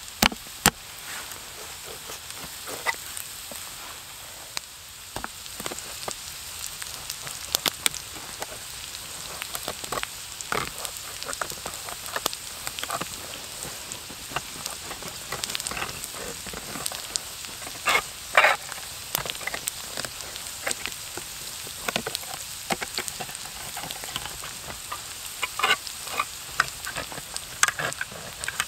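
Food sizzling in a frying pan over a small wood-burning stove, with a steady hiss full of small crackles. Sharp metallic clicks and scrapes come in the second half as a knife is stabbed through and worked around the lid of a tin can.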